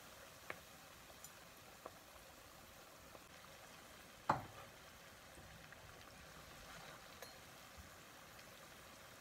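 Hot oil sizzling faintly in a frying pan as pinwheel dough puffs fry, with a few light clicks of a slotted spoon against the pan. The sharpest knock comes about four seconds in.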